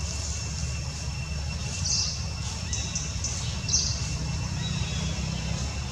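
Outdoor ambience: a steady low rumble with thin, steady high tones running through it, and two brief high chirps, about two seconds in and again near four seconds.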